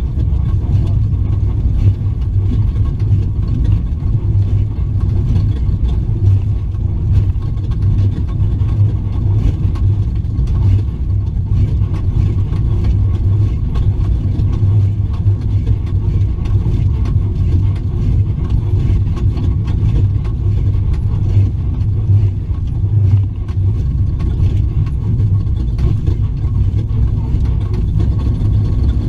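Off-road race truck (H&M-built 'Luxury Raptor') running steadily at race pace, heard onboard: a loud, even low engine and drivetrain rumble with no big changes in revs.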